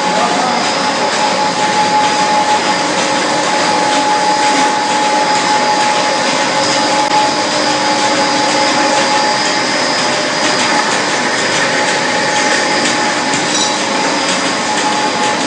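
Core-filling snack machine running: a steady, loud mechanical din with a constant whine.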